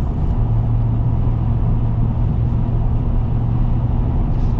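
Inside the cab of a 2024 Ford Super Duty with the 7.3-litre gas V8 at steady highway speed: engine drone mixed with road and tyre noise. A steady low hum comes in about half a second in and fades near the end.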